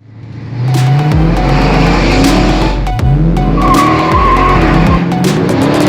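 Loud rock music with a car engine revving in rising sweeps, and a brief tyre squeal about halfway through.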